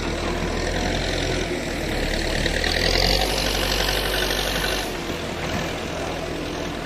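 Engine of heavy road-clearing machinery running steadily under a dense rushing noise, a little quieter after about five seconds.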